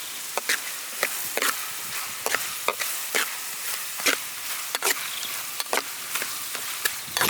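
Stir-frying in a hot pan: oil sizzling steadily, with irregular sharp clicks and scrapes of a spatula against the pan.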